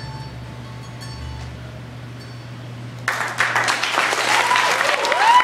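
The last faint notes of a recorded song die away, then about three seconds in an audience suddenly breaks into loud applause with cheering voices.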